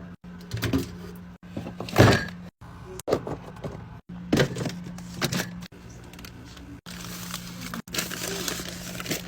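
Packaged drinks and snacks being handled and set into a fridge: a series of short knocks and clunks in quick edited cuts, with a stretch of rustling near the end, over a steady low hum.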